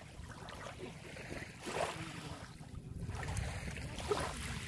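Small waves lapping at the water's edge over sand and shell fragments, the wash swelling about two seconds in and again near the end, with a low rumble of wind on the microphone.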